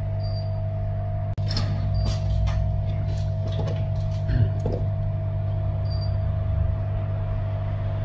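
A steady low electrical hum throughout, with a few light clicks and taps about one and a half to three and a half seconds in as the phone held in a metal helping-hands clamp is adjusted.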